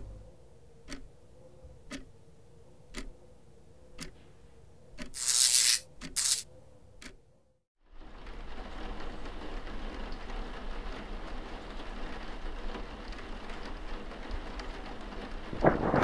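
Film sound effects: a clock ticking about once a second over a faint hum, with two short bursts of hiss around five and six seconds in. After a moment of silence comes a steady rain-like rushing noise with a low rumble, which swells into a loud rumble at the very end.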